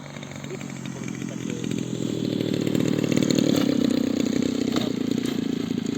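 Model aircraft engine running with a buzzing note, growing louder over about three seconds and then easing off slightly.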